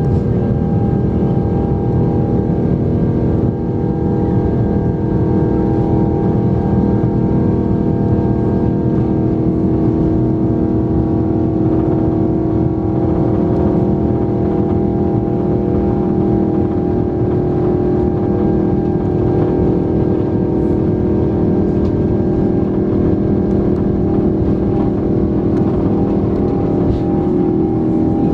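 Airbus A330-900's Rolls-Royce Trent 7000 turbofan engines running at takeoff power during the takeoff roll, heard inside the cabin beside the engine. It is a loud, steady rush of noise with several steady humming tones.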